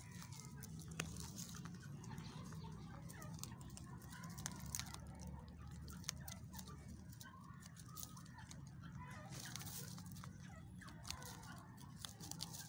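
Several young rabbits nibbling feed among dry straw: many small clicks and rustles. Clucking is heard in the background over a low steady hum.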